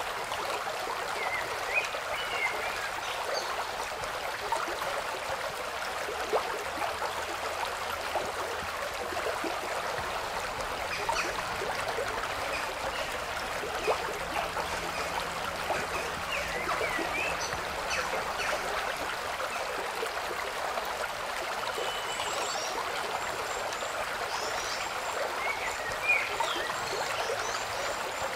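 Running water trickling steadily, with short high chirps now and then.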